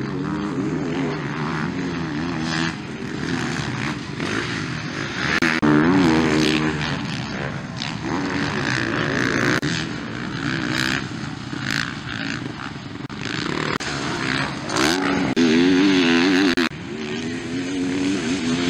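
Motocross motorcycles revving hard as they ride past on a dirt track, engine pitch rising and falling again and again. They are loudest about six seconds in and again around fifteen to sixteen seconds in.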